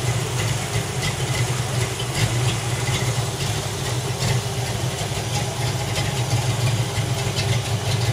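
Ford Mustang notchback's 5.0 V8 idling steadily, a low, slightly uneven engine note.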